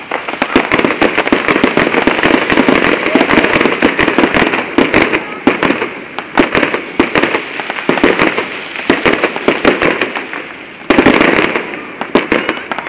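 Fireworks display: dense, rapid crackling and popping, many sharp bangs in quick succession, thinning a little midway before a fresh loud burst about eleven seconds in.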